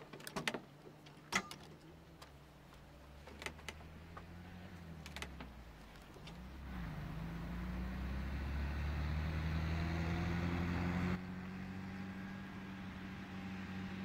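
Car engine running and drawing nearer, getting louder, its pitch sliding up and down as it changes speed, then dropping suddenly to a quieter, steady hum about eleven seconds in. A few sharp clicks in the first few seconds.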